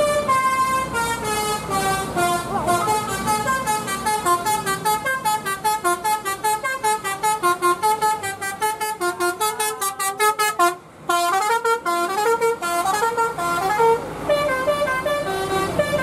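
Tour bus telolet "basuri" melodic horn playing a fast tune of stepping notes, with a short break about eleven seconds in.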